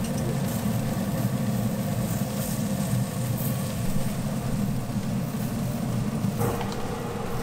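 Propane cooker burner running with a steady low roar under a cast iron skillet that is heating up, easing slightly near the end.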